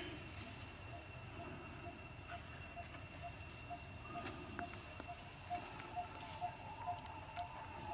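Faint outdoor ambience: a soft regular pulsing about twice a second under steady high-pitched tones, with a brief high chirp about three seconds in and a steady hum joining near the end.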